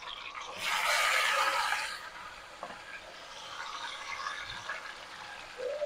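Yogurt-marinated chicken pouring into hot oil with fried onions in an aluminium pot, bursting into loud sizzling about half a second in for over a second, then settling to a steady, quieter sizzle as the wet marinade fries.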